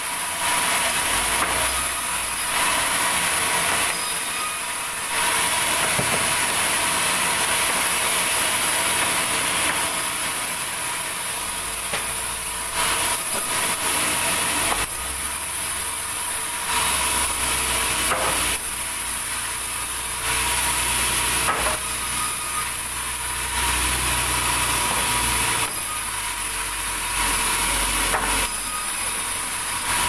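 Band saw mill resawing soft red durian wood into boards. The blade noise swells each time a board is fed through and eases between passes, over the saw's steady motor hum.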